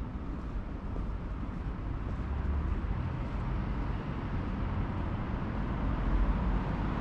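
Steady city street traffic noise, a low rumble of passing cars that grows a little louder toward the end.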